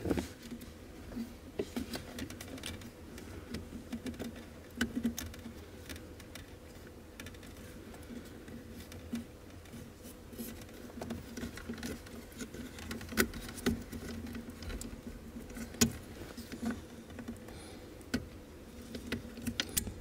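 Scattered small clicks and rustles of hands fitting plastic electrical connector plugs back onto the brake pedal switches under a car's dashboard, over a faint steady hum.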